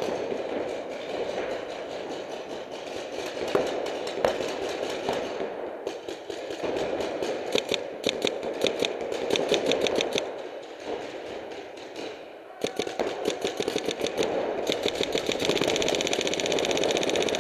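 Paintball markers firing, first scattered single shots, then several long volleys of rapid shots in quick succession, over a steady background noise.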